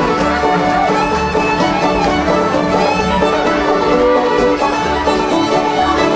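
Live acoustic mountain string-band jam: a fiddle carries the melody over strummed acoustic guitars, with a steady rhythmic bass pulse.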